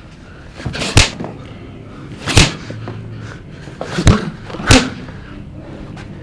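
Four hard punches landing on a person's body, each a sharp smacking thud: the first three about one and a half seconds apart, the last two close together.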